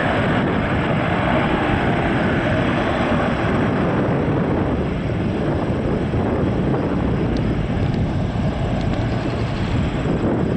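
Loud, steady roar of a military aircraft flying over, mixed with wind rumbling on the microphone; the higher part of the roar eases off about halfway through.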